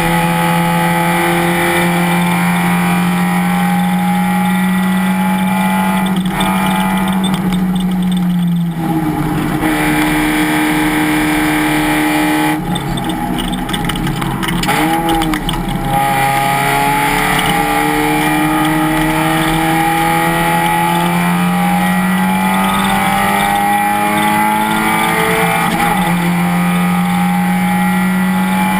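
Race car engine under load, its note climbing slowly as it pulls. The pitch drops sharply about nine seconds in, the note falls away and goes quieter for a few seconds around the middle, then it picks up and climbs slowly again.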